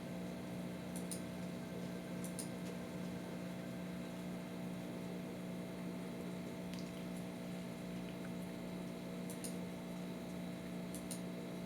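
Steady electrical hum from computer equipment, with a few faint, sharp clicks, some in quick pairs, typical of a computer mouse being clicked.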